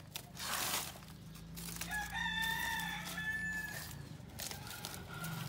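A rooster crowing once, one drawn-out call lasting under two seconds, starting about two seconds in. A short rustle comes just after the start.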